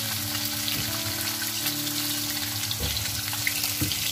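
Fish pieces deep-frying in hot oil in a wok, a steady sizzle with fine crackling, and a few light knocks near the end.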